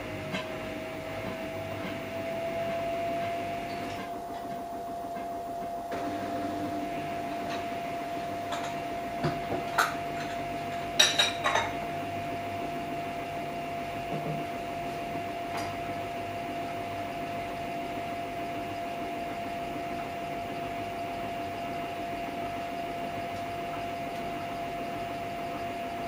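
Samsung Eco Bubble front-loading washing machine running a wash cycle with the drum turning: a steady high motor whine that rises a little at first and then holds. A few sharp clinks and knocks come around ten to eleven seconds in.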